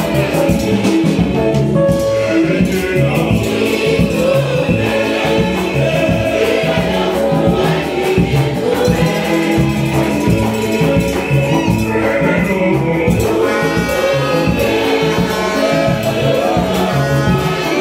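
Choir singing a lively hymn over a steady percussion beat.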